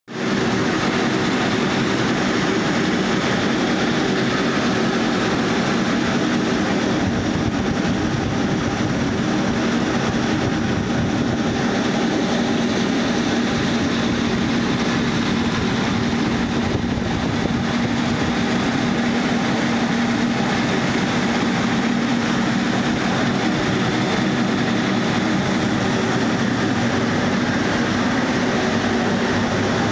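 Trough beater running, its beater roll churning a trough of wet waste-paper pulp: a loud, steady mechanical din with a constant low hum.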